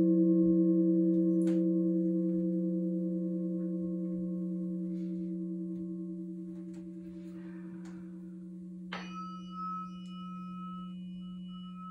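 Crystal singing bowls ringing, their low tones slowly fading. About nine seconds in, a higher-pitched bowl is struck once and rings on with a steady tone.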